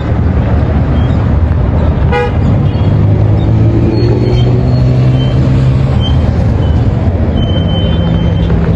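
Busy road traffic, a steady low rumble of engines and tyres, with a short car-horn toot about two seconds in and a longer low horn-like tone after it.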